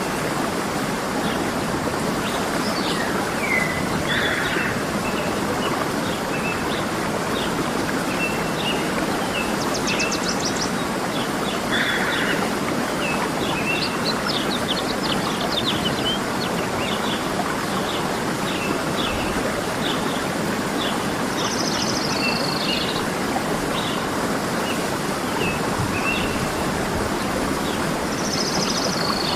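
A waterfall's steady rush of falling water, with several birds chirping and whistling over it in short, scattered calls.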